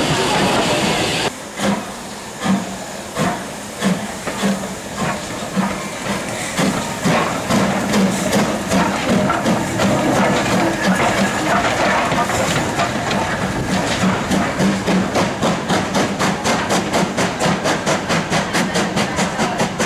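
BR Standard Class 4MT tank locomotive 80104 pulling away with its train. A steady hiss of steam stops about a second in, then the exhaust beats begin, slow at first and quickening to about three a second as the train gathers speed.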